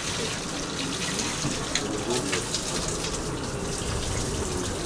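Steady rush of running water from the water-ballast system of a water-powered funicular car, the water that drives the cliff railway.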